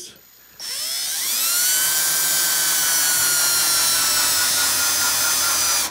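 RIDGID cordless drill/driver driving a number 10 screw into a 1/4-inch plastic anchor set in a wooden shelf upright. The motor whine rises in pitch as it spins up, runs steadily with its pitch sinking slightly, then stops abruptly near the end.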